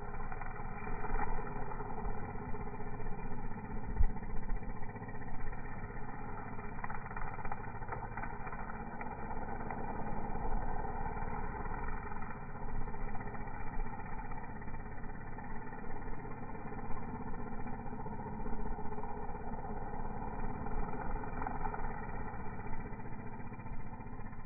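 String trimmer engine running steadily as it cuts grass, with a single sharp knock about four seconds in.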